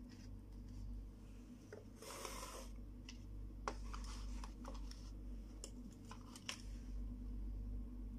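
Small plastic toy kitchen pieces being handled and set down on a cloth-covered table: a brief rustling scrape about two seconds in, then a few light plastic clicks and taps.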